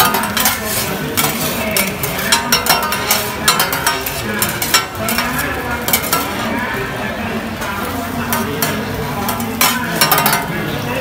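Two metal spatulas scraping and clacking against a large flat iron griddle while an egg mixture sizzles on it. There are frequent sharp clacks over a steady sizzle, and they come thickest in the first half and again near the end.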